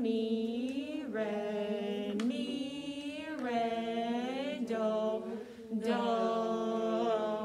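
Sight-singing of a slow melody in F major on solfège syllables, each note held about a second before stepping to the next, with brief breaths between phrases.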